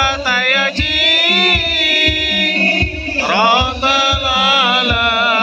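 Islamic devotional song (sholawat): a singer holds a long, wavering, melismatic line over a steady beat of hadrah frame drums, about two strokes a second.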